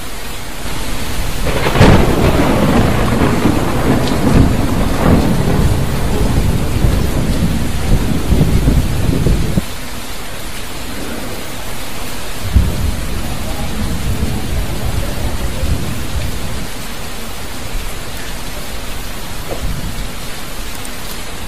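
Heavy rain falling steadily, with a sharp clap of thunder about two seconds in that rumbles on for several seconds before stopping abruptly, and a fainter rumble of thunder near the middle.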